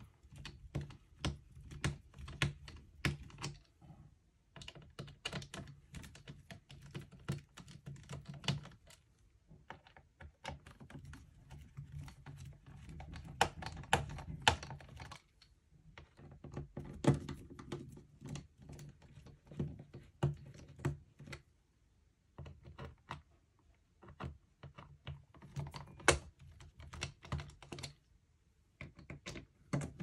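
Screwdriver backing out the small bottom-panel screws of a Lenovo ThinkPad X1 Carbon laptop: runs of quick small clicks and light knocks against the panel, each lasting several seconds, with short pauses in between.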